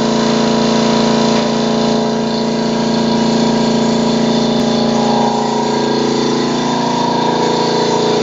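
Air compressor running steadily, a constant machine hum under the hiss of a hose-fed paint spray gun spraying paint.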